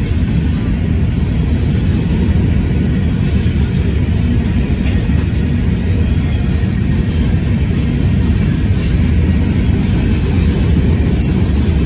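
Covered hopper cars of a freight train rolling past on the rails: a steady, loud, low rumble with no distinct clanks or horn.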